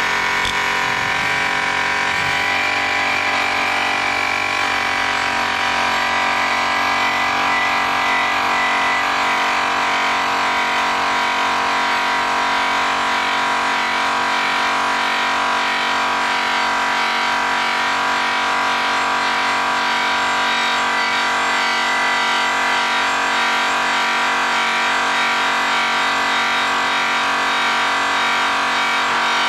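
DeWalt variable-speed rotary polisher running steadily with a whine, its cutting buff working the metal of a car wheel during the cut stage of polishing. The tone shifts a little in the first few seconds, then holds steady.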